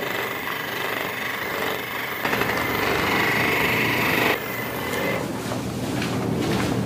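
A small electric motor buzzing steadily with a high whine, louder between about two and four seconds in.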